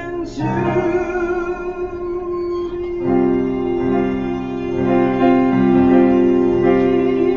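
A male tenor voice holds one long sung note over piano chords, which start about three seconds in and repeat in a steady pulse.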